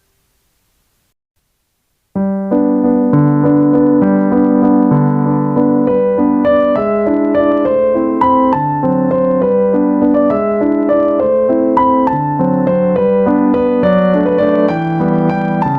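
Background piano music, starting suddenly about two seconds in after a short silence: a steady run of piano notes and chords.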